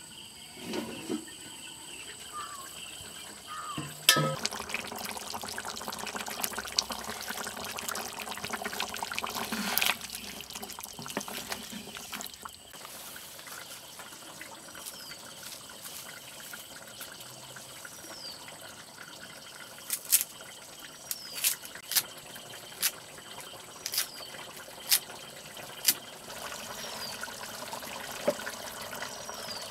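Liquid pouring and trickling into a hot iron kadai on a wood-fired mud stove, then the gravy simmering. In the second half there are several sharp crackles from the burning firewood.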